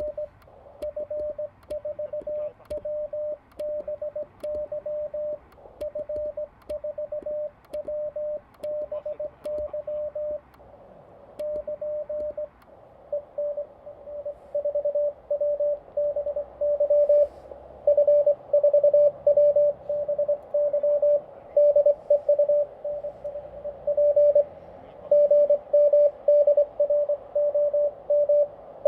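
Morse code (CW) from a Xiegu G90 HF transceiver: a single steady tone keyed on and off in dots and dashes. A louder, faster run of code starts about a dozen seconds in.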